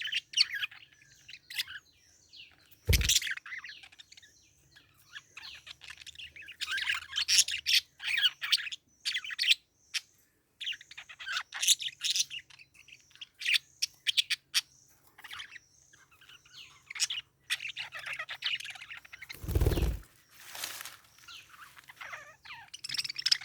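Parakeet chirping in quick bursts of short, high notes, with brief pauses between bursts. A dull thump sounds about three seconds in, and a longer low bumping noise comes near the end.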